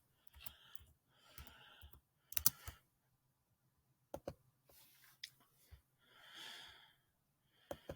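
Faint handling noise: a few scattered small clicks and soft rustles, with no one speaking.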